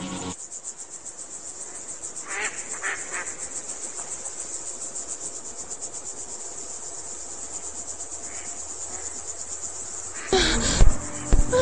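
Crickets chirring steadily in a high, fast-pulsing trill. Near the end, louder sounds cut in suddenly, with two sharp hits.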